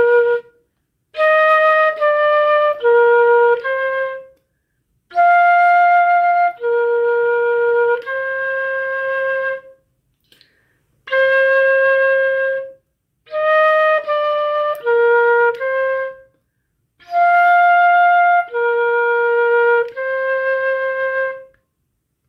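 Solo flute playing a short, slow melody of held notes in steady time. It plays the tune twice through with a pause of about a second between, and each time it ends on a long held note.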